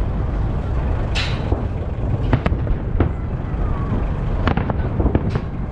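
Festive fireworks salute: scattered sharp bangs and cracks of bursting shells over a steady low rumble, with a short crackling hiss about a second in.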